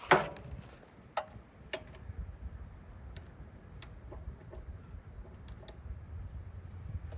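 A wrench clanking against metal on the engine's drain plug: one sharp, ringing clank at the start, then scattered lighter metallic clicks and taps as the tight plug is worked at.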